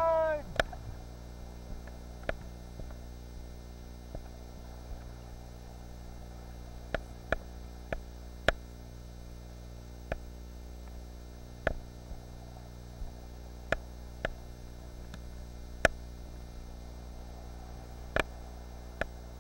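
Steady low electrical hum from the kayak-mounted camera's recording, broken by irregular sharp clicks and knocks every second or two.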